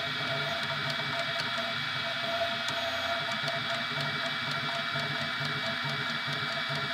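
3D printer running mid-print: a steady fan whir with stepper-motor tones that shift as the print head moves, and faint ticks.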